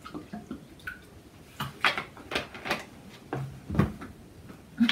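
Water glugging in a plastic bottle as it is tipped up to drink from, with scattered clicks and knocks of the bottle being handled.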